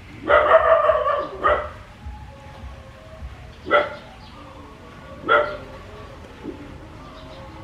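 A dog barking: a quick run of barks near the start, then single barks every second or two.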